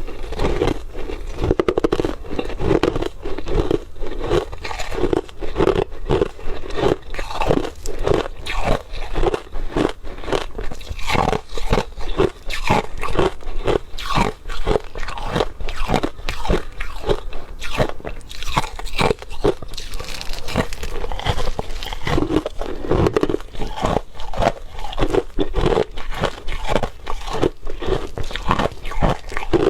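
A person biting and chewing crushed ice close to the microphone: a continuous run of sharp crunches, several a second.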